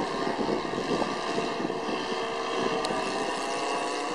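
Several radio-controlled model airplanes droning overhead, their engines and propellers at different, slowly shifting pitches, with wind noise on the microphone.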